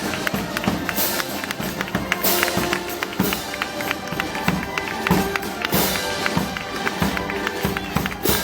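Festival band music: sustained pitched instrument lines with loud percussion strikes about once a second, typical of the street bands of a Moros y Cristianos fiesta.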